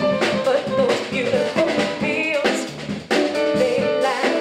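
A woman singing a jazz song live with a small band of piano, upright bass and drum kit.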